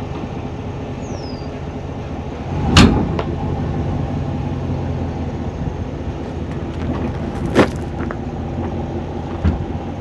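A vehicle engine idling steadily, with a loud sharp thump about three seconds in, a second one about five seconds later and a lighter knock near the end.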